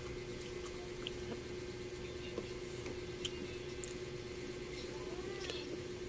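Wet, squishy sounds of a juicy pomelo being eaten by hand: segment membrane pulled off the pulp with small clicks and the flesh chewed, over a steady low hum.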